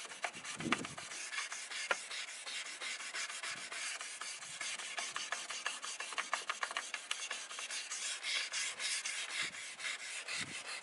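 Fine 1500-grit wet sandpaper, wrapped around a sponge, scrubbing a plastic taillight lens in quick, steady strokes. It is cutting the yellowed oxidation off the lens.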